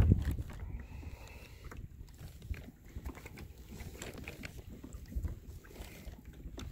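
Small knocks and clicks of handling on a fishing kayak over a low rumble of wind on the microphone, with a louder low thump right at the start.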